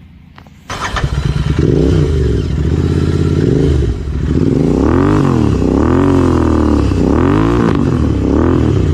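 Royal Enfield Continental GT 650 parallel-twin engine breathing through aftermarket exhausts on both sides. It comes in abruptly under a second in, runs at idle with small blips, then is revved hard four times in the second half, each rev rising and falling.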